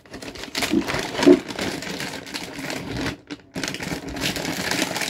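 A toy train set's box being opened by hand: packaging rustling and crinkling, with scrapes and small clicks, dropping off briefly about three seconds in.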